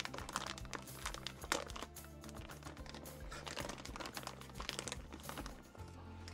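Background music, over the irregular crinkling of a clear plastic parts bag being handled.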